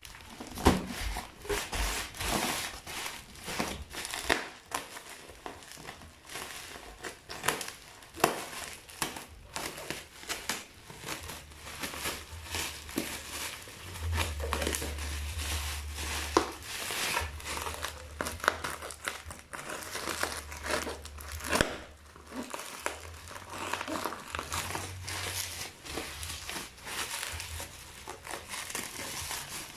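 Packaging crinkling and rustling as it is handled and opened, in irregular bursts with sharp crackles and clicks.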